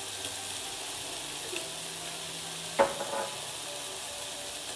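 Diced chicken breast, onion and chili frying in a nonstick pan, a steady sizzle. A single knock sounds near three seconds in.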